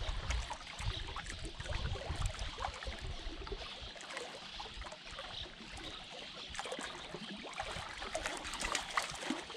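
Small waves lapping and trickling against shoreline rocks, with many small irregular clicks and splashes, under a low rumble that fades after about three seconds.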